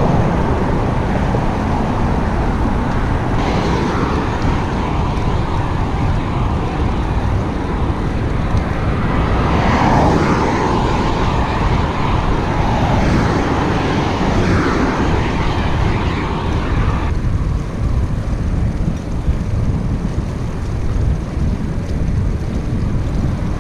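Wind buffeting the microphone of a camera on a moving bicycle, a loud steady rumble, with road traffic passing alongside. The traffic swells about halfway through and the hiss thins out for the last few seconds.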